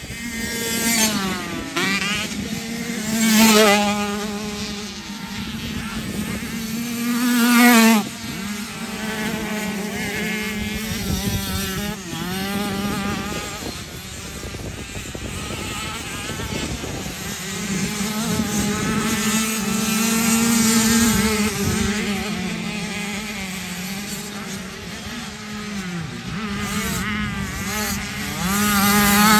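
Motocross bike engine running hard, revving up and down again and again as the throttle opens and closes, with sharp climbs in pitch about three and eight seconds in.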